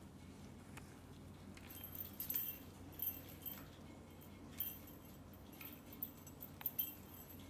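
Small jingle ball toy tinkling and clinking in short, irregular bursts as a kitten bats it across a wooden floor.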